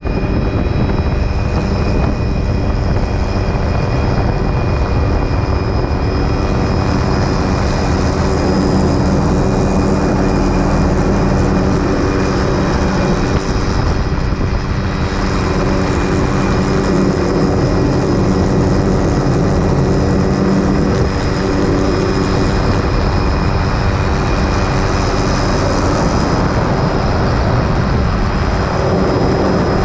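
Helicopter in flight with its doors off: the steady drone of rotor and engine, with steady wind noise rushing through the open cabin.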